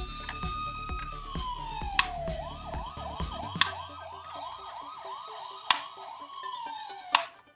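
Emergency-vehicle siren sound: a wail that falls, a few seconds of fast warbling yelp at about three cycles a second, then another fall. Four sharp clicks come through it, and a low hum fades out about halfway.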